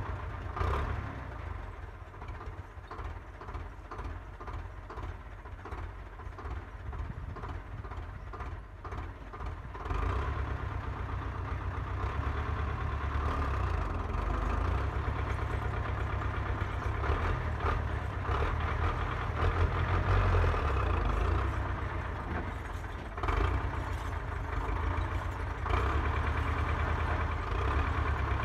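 Farm tractor engine running steadily as the tractor drives slowly along a dirt track. It gets louder about ten seconds in as the tractor comes closer.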